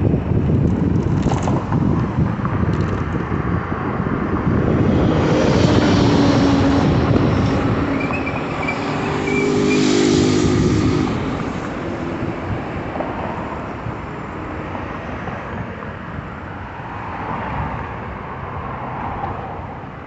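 City street traffic heard from a moving bicycle, with wind buffeting the microphone. A motor vehicle passes close and is loudest about halfway through, then the traffic sound eases off.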